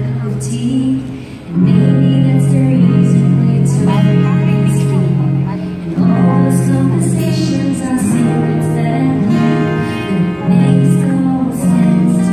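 Live acoustic-guitar duet: two acoustic guitars strummed with singing over them through a microphone.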